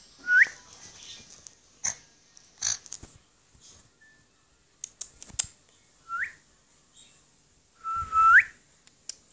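A person whistling to call a dog: three short rising whistles, about a second in, around six seconds in and near the end, the last one longer and louder. Sharp clicks come in between.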